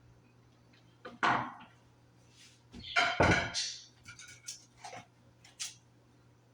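Kitchen clatter: dishes and utensils being handled and set down, with a clunk about a second in, a louder double clunk around three seconds in, then several lighter clicks and knocks.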